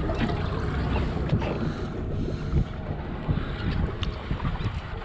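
Wind buffeting the microphone over water lapping against a small boat's hull, with a couple of light knocks.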